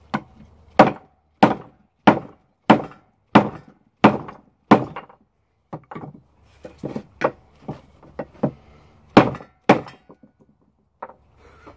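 Wooden baton striking the spine of a Root 2.0 bushcraft knife, batoning the blade down through a piece of wood to split it. A steady run of about eight hard thunks, roughly one every two-thirds of a second, then a stretch of lighter knocks, then two more hard blows near the end.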